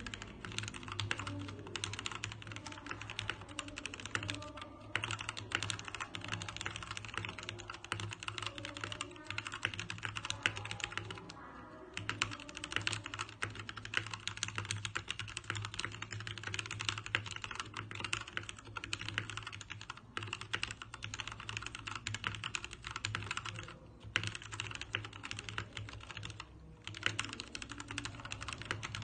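Fast, continuous typing on a DareU EK87 mechanical keyboard: rapid key clicks and clacks with a few brief pauses, over a steady low hum.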